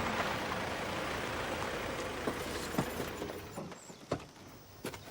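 A vehicle's engine running with a low hum, fading away about three and a half seconds in, followed by a few short knocks.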